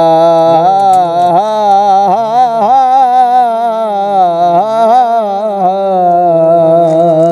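A male Punjabi folk singer holding one long wordless sung note, its pitch wavering and bending in quick ornaments before it cuts off near the end.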